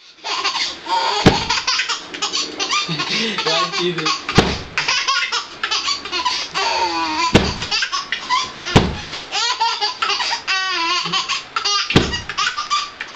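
Baby belly-laughing over and over in high-pitched peals. About five soft thumps of a pillow hitting the bed are spread through the laughter.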